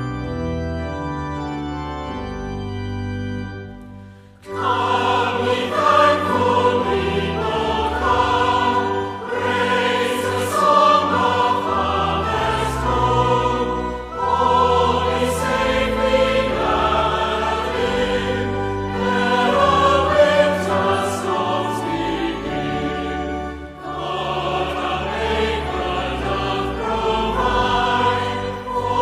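Church organ playing a short introduction of held chords, then about four seconds in a choir comes in, singing a hymn with the organ accompanying.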